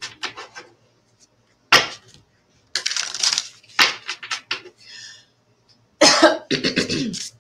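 A woman coughing several times in short fits, the hardest coughing about six seconds in, into the crook of her elbow.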